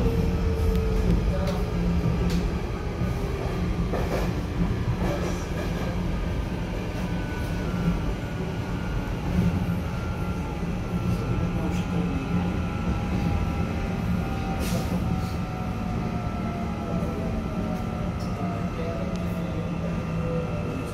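Korean-built Cairo Metro Line 1 train heard from inside the car while it runs. There is a steady low rumble from the wheels and track, and a thin electric motor whine over it that slowly slides down in pitch. A few short clicks and knocks come from the car.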